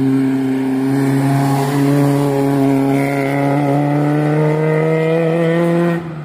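Competition car's engine held at high revs under full throttle on a hillclimb, its note rising slowly and steadily for about six seconds as the car accelerates, then dropping off sharply near the end as the throttle comes off.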